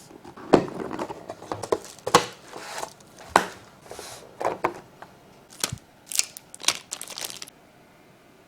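A mechanical keyboard's packaging being handled and opened: irregular rustling with a series of sharp knocks, stopping about seven and a half seconds in.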